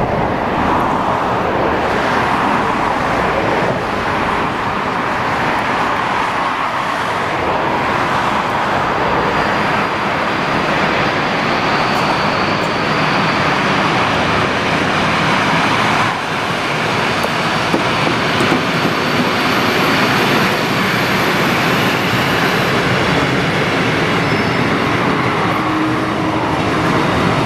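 Train wagons rolling past on the track, a steady loud noise with a faint high squeal partway through.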